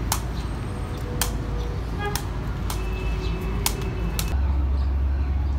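Rattan chinlon ball kicked back and forth, six sharp taps roughly a second apart. About four seconds in the taps stop and a steady low rumble takes over.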